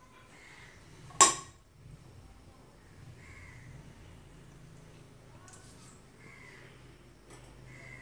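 One sharp clink about a second in, a hard object being set down in the kitchen, over a quiet background with faint crow caws repeating every few seconds.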